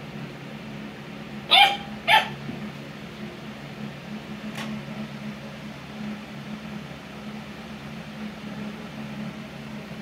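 Rough Collie puppy barking: two sharp, loud barks about half a second apart, then a fainter one a couple of seconds later.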